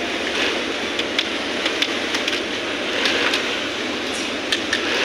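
Industrial sewing machine running as it stitches denim: a steady whirring with scattered sharp clicks.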